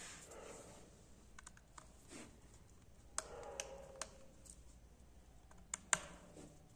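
Scattered small sharp clicks and taps of a small screwdriver working on the screws and metal midframe of a Redmi Note 7 Pro phone, with the two loudest close together about six seconds in.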